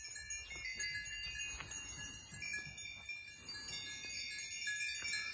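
Small bells on the collars of grazing goats ringing, many overlapping tones.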